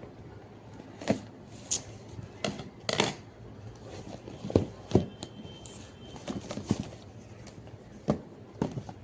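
Scattered clicks, taps and light knocks, about a dozen at irregular intervals, from a parcel being handled and opened during an unboxing.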